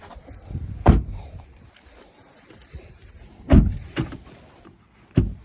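Four sharp clunks from a 2022 Volkswagen ID.4's driver's door and its latch as the door is worked, its failed door handle not releasing it properly. The two loudest come about a second in and about three and a half seconds in.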